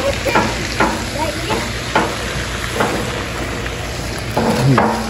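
Wood fire crackling in a fire pit, with irregular sharp pops over a steady hiss.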